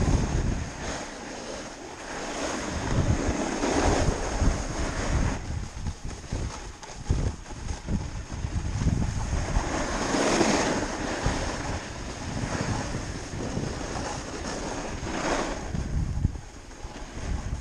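Wind rushing over the microphone while snowboarding downhill, with the board's hiss over the snow swelling several times.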